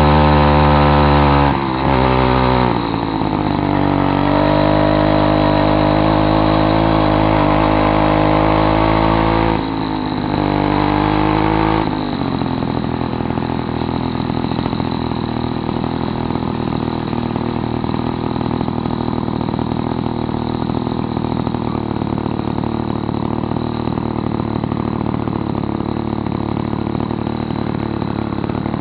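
66 cc two-stroke motorized-bicycle engine with a modified muffler (inner tube cut out, 5/8 inch hole drilled in the cap) running under way. Its pitch drops briefly twice in the first twelve seconds, then it settles to a steady lower idle as the bike coasts to a stop.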